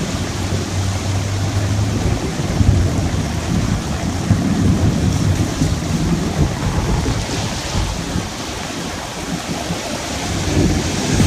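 Heavy rain pouring down in a thunderstorm, a steady loud hiss with low rumbles of thunder rising and falling under it.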